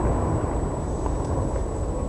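Fireworks display: a continuous low rumble from shells bursting, with a few faint pops and crackles.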